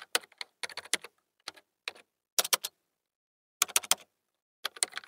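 Typing sound effect: short runs of quick keyboard clicks separated by pauses of up to a second.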